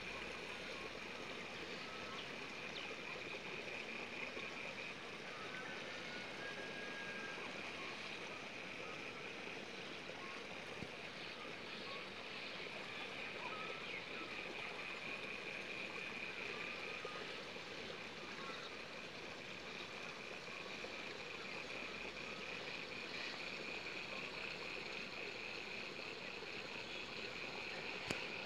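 Outdoor ambience of a flooded rice paddy: a steady high chirring that pulses rapidly, over a constant hiss, with a few faint short chirps now and then.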